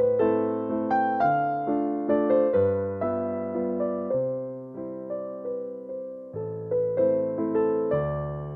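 Background music: a gentle piano melody over chords, each note struck and then fading.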